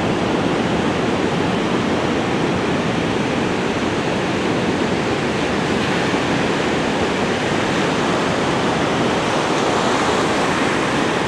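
Ocean surf breaking along a beach: a steady, unbroken roar, with some wind.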